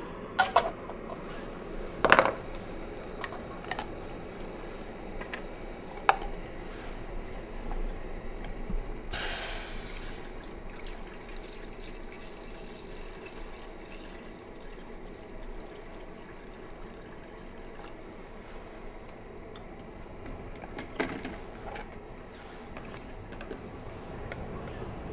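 Water poured from a plastic bottle into a Jetboil cooking pot on a lit gas canister stove, over a steady hiss. A few sharp knocks of the pot and gear being handled.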